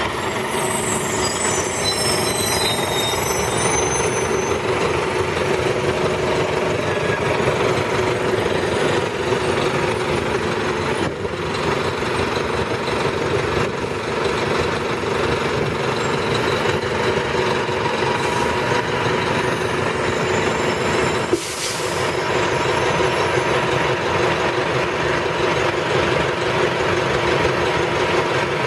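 1998 NovaBus RTS-06 transit bus running steadily at idle with a constant drone and whine, heard close from outside the bus. A high squeal comes in the first couple of seconds, and a short sharp hiss about three-quarters of the way through.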